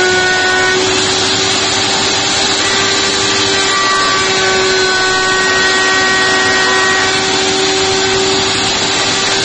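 Table-mounted router running at full speed, its bearing-guided bit trimming a rounded corner on a wooden workpiece guided by a corner-radius template: a steady motor whine under the rushing noise of the cut.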